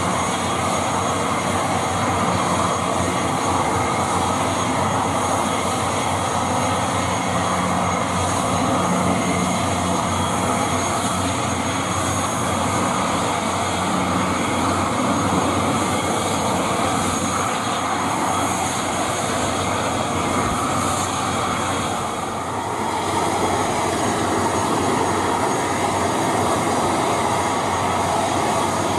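Turboprop engines of an ATR 72-600 airliner running steadily on the ground: a continuous broad rushing drone with a steady high whine in it. It turns briefly softer about three-quarters of the way in.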